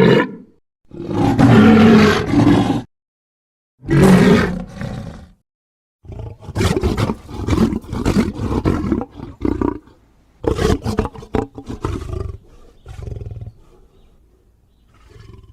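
Kaiju monster roar sound effects for Anguirus: a short roar, then two longer roars, then a run of choppy growls and grunts that fade out near the end.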